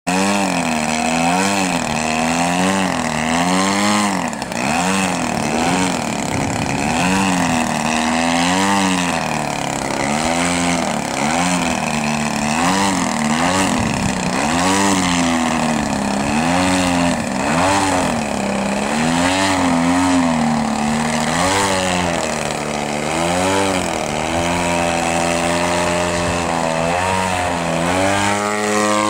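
A Carden Yak 54 RC aerobatic plane's DL 55cc single-cylinder two-stroke gas engine and propeller running loud with the plane held in a hover. The pitch rises and falls every second or two as the throttle is worked, then steadies near the end.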